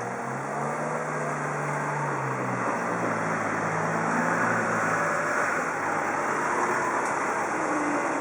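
A road vehicle driving past, its engine humming low under tyre noise that grows louder over the first few seconds.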